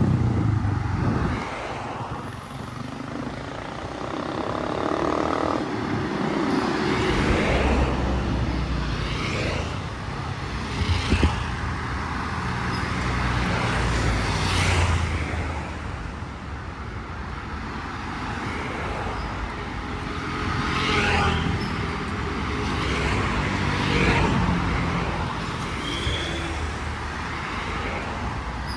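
Road traffic: vehicle engines running steadily as cars and motorbikes pass, swelling and fading.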